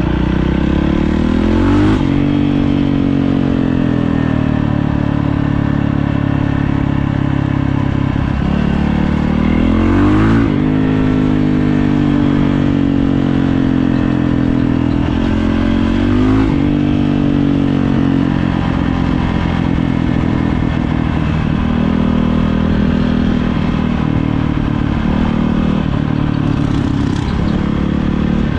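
A single-cylinder four-stroke dirt bike engine runs loud and steady on the trail. It revs up, the pitch climbing and then dropping back, near the start, about ten seconds in and again around sixteen seconds.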